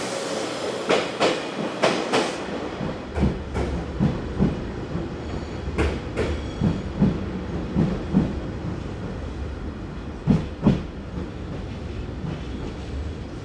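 The Seven Stars in Kyushu cruise train's passenger cars roll past, their wheels clicking over the rail joints, often in pairs. The last pair of clicks comes about ten seconds in, and then the train's rumble fades as it moves away.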